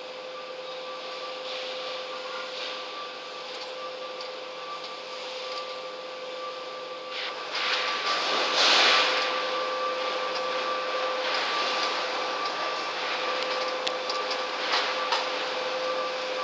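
Steady machine hum holding two constant tones. A hissing rush swells loudest about eight to nine seconds in, and a few faint clicks are scattered through it.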